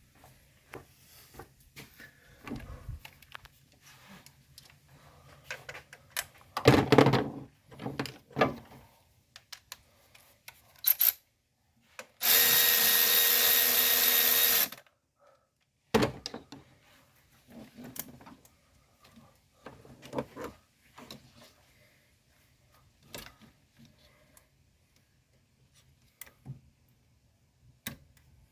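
A power tool runs steadily for about two and a half seconds, midway through, while fastenings are taken off a car engine's top end. Around it come scattered clicks and knocks of hand tools and plastic engine parts being handled.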